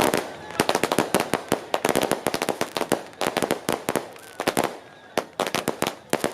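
Strings of firecrackers going off in a rapid, irregular crackle of sharp bangs, several per second, with echo between them.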